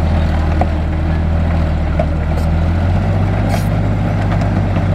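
Heavy diesel engine of earthmoving machinery running steadily with a deep, even drone, with a short hiss about three and a half seconds in.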